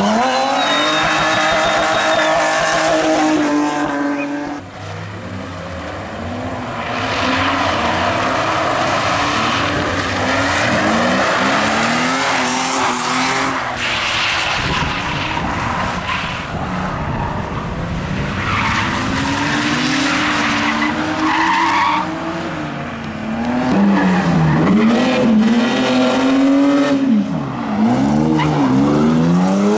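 BMW 3 Series rally and drift cars sliding sideways through corners. Their engines rev hard, the pitch repeatedly climbing and dropping, as the tyres squeal and scrub on the tarmac.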